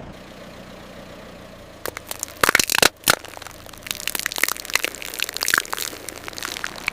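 Objects crushed under a car's tyre: a few loud cracks and crunches about two seconds in, then a run of smaller crackling and crunching, over the steady low hum of the car's idling engine.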